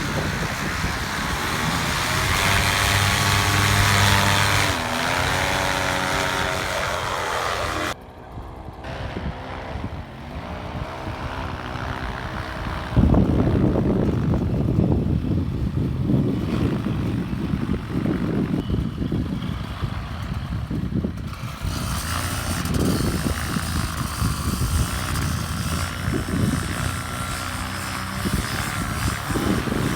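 Paramotor engine and propeller running, its pitch shifting with the throttle. About eight seconds in the sound changes abruptly and dulls, and from about thirteen seconds gusting wind buffets the microphone over the engine.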